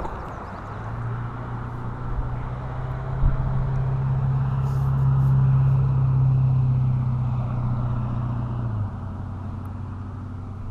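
A motor vehicle's engine running close by with a steady low hum, growing louder toward the middle, then dropping to a lower pitch near the end.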